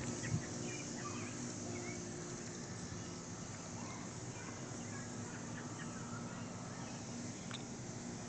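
Steady, droning chorus of cicadas, with a low steady hum underneath and a few faint bird chirps. No siren is sounding.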